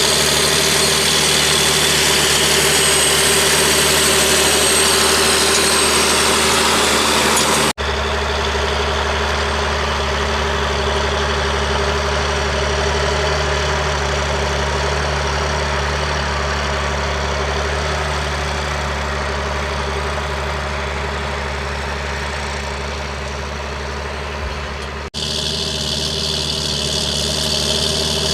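John Deere 8320 tractor's six-cylinder diesel engine running steadily. Sharp cuts about 8 and 25 seconds in change the sound: the middle stretch is deeper and more muffled, the last stretch brighter again.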